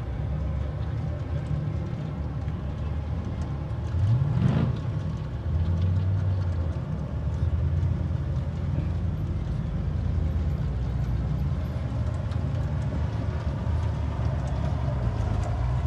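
Off-road rock crawler's engine climbing a rocky hill, running steadily with a brief sharp rev about four and a half seconds in and louder running from about six seconds on.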